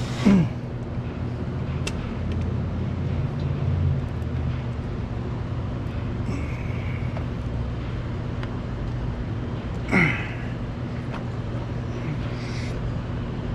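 Work on an over-tightened oil filter that will not break loose: two short, loud sounds with a quick falling pitch, one at the start and one about ten seconds later, over a steady low hum and a few faint scrapes and clicks.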